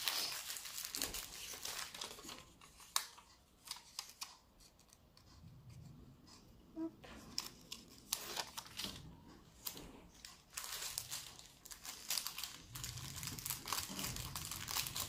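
Clear plastic packaging crinkling as it is handled, mixed with the tearing rustle of a paper sticky label being peeled and handled. It comes in irregular rustles and sharp clicks, with a quieter spell around the middle.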